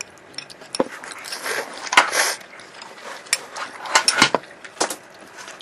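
Scattered light clicks and knocks of chopsticks against a ceramic bowl as someone eats at a table, a few of them sharper than the rest.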